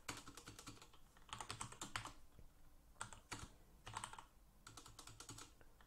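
Faint typing on a computer keyboard: quick runs of keystroke clicks broken by short pauses.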